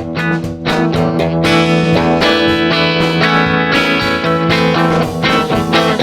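Live folk-rock band playing an instrumental passage: guitar with drums keeping a steady beat.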